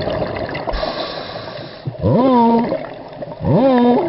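A muffled human voice underwater making two short hum-like calls, each gliding up and then holding, over a steady underwater hiss.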